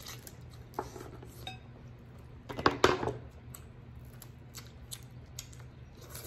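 Kitchen shears snipping through king crab leg shell, with scattered sharp clicks and a louder burst of cracking shell about two and a half seconds in.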